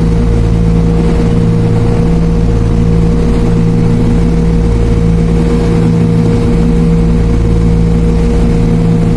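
A car ferry's engines running steadily while it is underway: an even, low drone with several steady tones that hold constant throughout.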